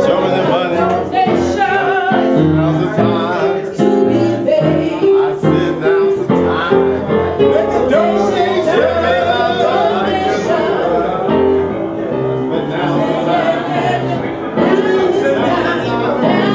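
Live singing, a man's voice prominent, with piano accompaniment.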